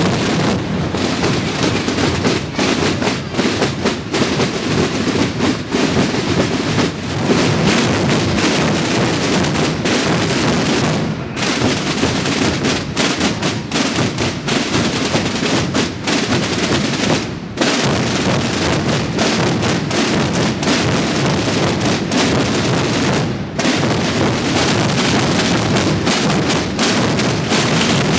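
Massed Holy Week bombos (bass drums) and tambors (side drums) of many drum confraternities playing together in a dense, continuous roll of strokes, broken by a few short gaps.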